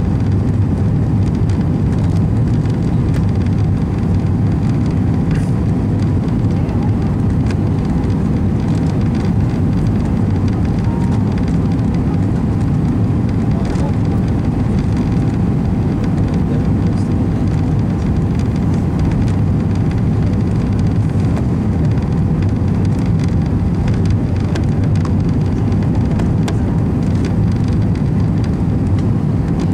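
Steady cabin noise of an airliner in flight: a constant rumble of engines and rushing air, with a faint steady hum on top.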